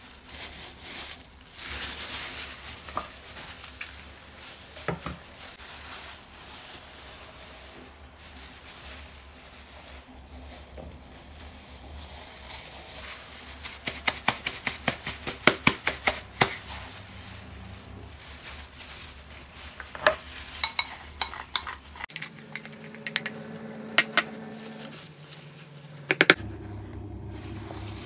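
A utensil stirring and scraping in a mixing bowl over a steady hiss, with a fast run of clinks about halfway through and scattered clinks later. A low steady hum sounds for a few seconds near the end.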